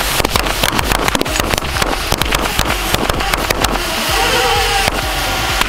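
Strings of small firecrackers (carrilleras) going off in a rapid, continuous crackle of sharp bangs. A brief wavering tone sounds under the crackle about four seconds in.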